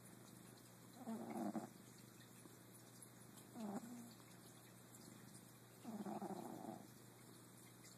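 A sleeping pet snoring: three short, buzzy snoring breaths spaced a couple of seconds apart, the last the longest.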